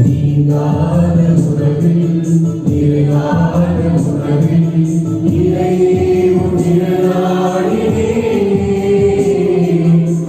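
Choir singing a Tamil Christian devotional hymn, voices together on long held notes.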